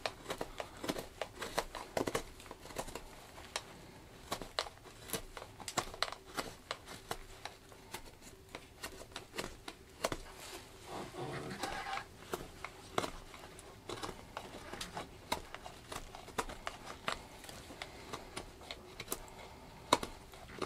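A Mora Companion knife with a freshly sharpened Scandi edge carving knotty wood: a run of short, irregular crisp cuts and scrapes as shavings peel off.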